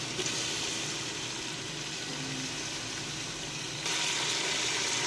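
Onions and boneless chicken pieces sizzling as they fry in hot oil in an aluminium pot, the onions being browned; the sizzle grows louder about four seconds in.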